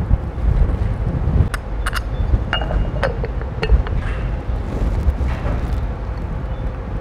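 Scattered light clicks and a brief metallic clink from hand work with a screwdriver and screws on a robot arm's plastic cover, over a steady low rumble.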